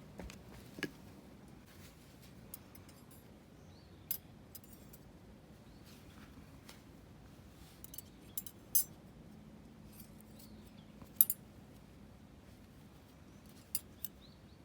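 Light metal clicks and clinks, about a dozen short sharp ones scattered irregularly, from the parts of a lightweight mesh fire pit being handled and fitted together.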